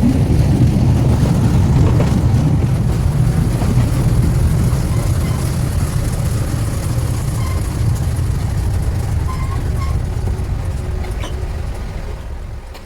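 Open-air sightseeing railcar running along the track: a steady low rumble of the running gear and wheels on the rails, which eases off and quietens near the end.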